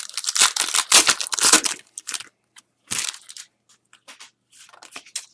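Crinkling and crackling of a trading-card pack wrapper being handled and crumpled. It is densest over the first two seconds, with another burst about three seconds in, then a few scattered crackles.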